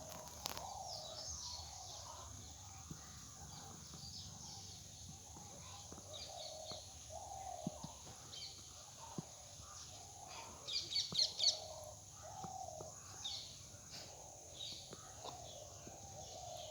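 Birds chirping and calling, with a quick run of four louder chirps about eleven seconds in, and a few faint clicks.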